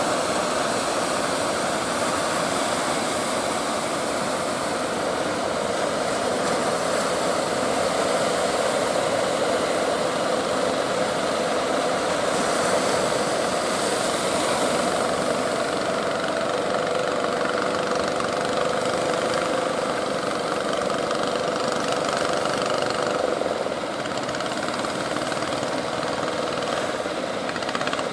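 A motorboat engine running steadily, mixed with the rush of surf.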